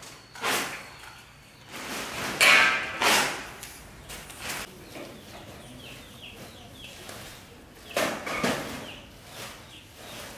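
Tools and metal parts handled and set down on concrete: a series of separate clanks and scrapes, the loudest about two and a half seconds in, with lighter handling noise between.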